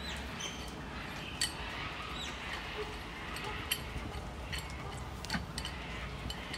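Scattered light metallic clicks and short squeaks from a threaded rod being turned in a square steel-tube brace to adjust its length, over a steady low hum.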